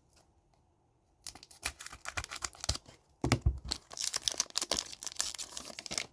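Hockey card packaging being torn open and handled, with dense crinkling and tearing that starts about a second in and a duller knock about three seconds in.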